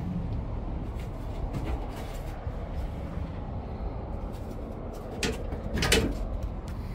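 Clicks and knocks of the Peugeot e-Partner's cargo-bulkhead load-through flap being handled and swung open, the loudest knock about six seconds in, over a steady low rumble of handling noise.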